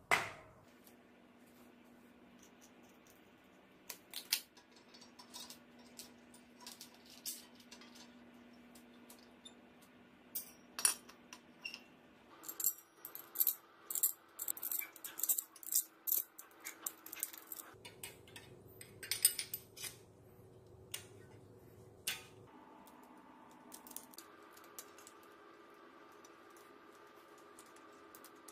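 Small metal parts clinking and clicking as a steel sprocket, its bolts and nuts are handled and fitted onto a bicycle rear-wheel hub. The clicks come irregularly and are busiest around the middle.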